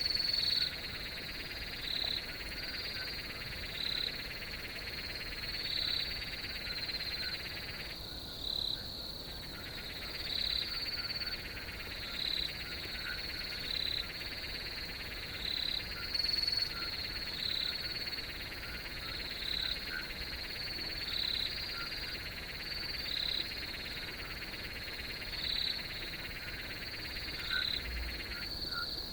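Night chorus of crickets: a steady high trill with a short call repeating about once a second, over a denser lower chorus that drops out briefly twice, about eight seconds in and near the end.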